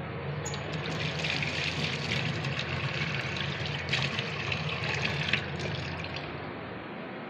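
Tap water running and splashing into a stainless steel kitchen sink. It grows louder about half a second in and eases after about five and a half seconds as the stream thins.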